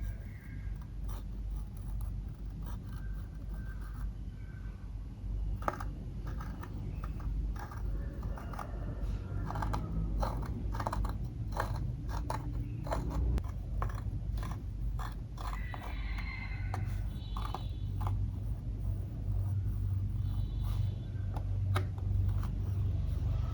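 Rapid crunching and scraping clicks from makeup being worked into clear slime, densest in the middle of the stretch, over a steady low hum.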